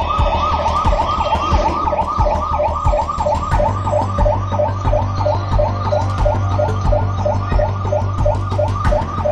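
Emergency vehicle siren in a fast yelp, sweeping up and down about three times a second, over a low steady hum.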